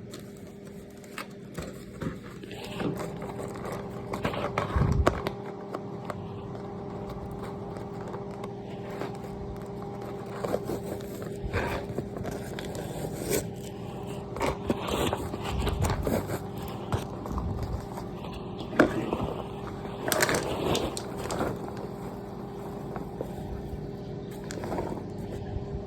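Microwave oven running with a steady hum while butter melts inside, with scattered light clicks and scrapes.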